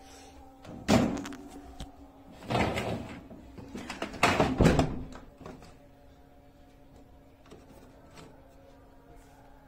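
Dishwasher door and racks being handled: a sharp knock about a second in, then two longer rattling, sliding scrapes like racks rolled along their rails, over a faint steady hum.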